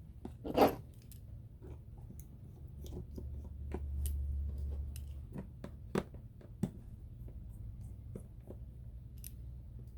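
Scattered small clicks and taps of tools and parts being handled on an opened smartphone during a screen repair, with a low hum swelling up briefly around the middle.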